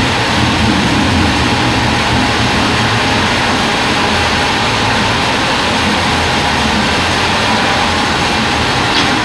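Log band sawmill running steadily, a loud even mechanical noise with a low hum underneath. A short click comes near the end.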